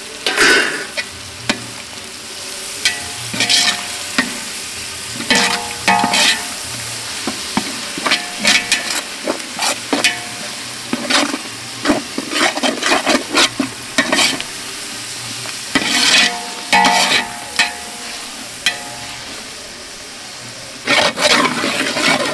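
Metal ladle stirring and scraping a tomato, curd and green chilli masala around a large metal pot, repeated irregular scrapes over a steady sizzle of frying.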